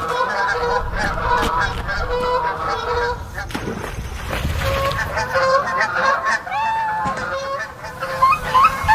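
A dense chorus of many animal calls overlapping at once, pitched cries bending up and down.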